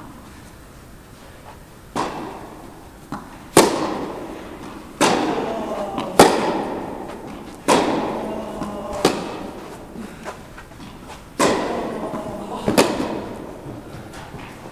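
Tennis rally: a ball struck back and forth by rackets, about eight sharp pops spaced a second or so apart, each ringing on with a long echo in the large indoor tennis hall.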